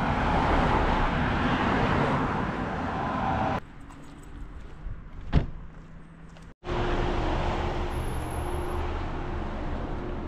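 Car and road noise in edited cuts: a loud stretch of steady rumble, a quieter gap with one sharp click about five seconds in, then steady running noise again.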